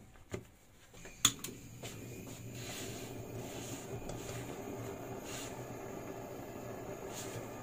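Kitchen blowtorch lit with a sharp click about a second in, then burning steadily.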